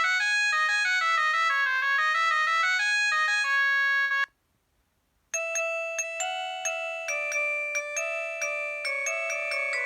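Preloaded ringtones on a Huawei G7002 mobile phone: a quick electronic melody cuts off about four seconds in, and after a second of silence the next ringtone starts, a repeating pattern of struck, bell-like notes.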